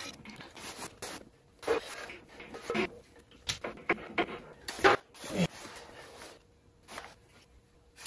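Scattered handling noises from hand work at a motorcycle fender: short rustles and light clicks of a jacket and fender-bolt hardware being fitted, a few seconds apart and dying away near the end.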